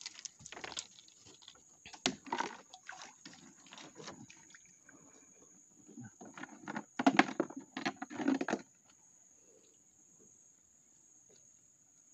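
River water splashing and sloshing, with knocks and rustles, as a man's hands reach into it over the side of a small boat among submerged branches. It comes in irregular bursts, loudest from about seven to eight and a half seconds in, then stops.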